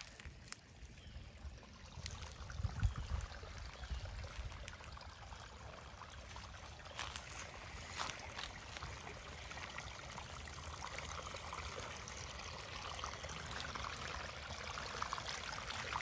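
Shallow creek water trickling over rocks. It grows steadily louder near the end as a small waterfall spilling over a tree root comes close.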